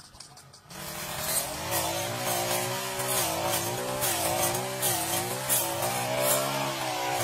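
Brush cutter's small engine running at high speed while cutting weeds, its pitch wavering up and down as the load changes. It starts about a second in.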